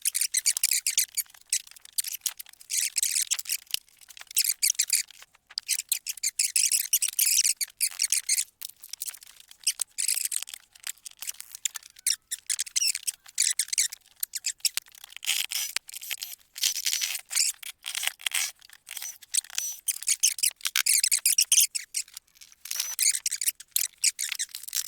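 Old wallpaper being scraped and peeled off a wooden board: rapid, irregular scratchy strokes in bursts with short pauses.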